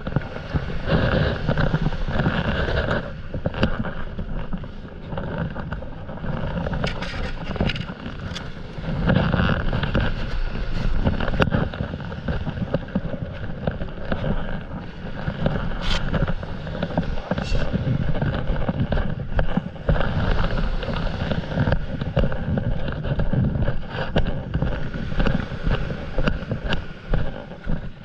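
Wind buffeting the camera's microphone in uneven gusts, a deep rumbling rush, with small waves washing onto the sand underneath.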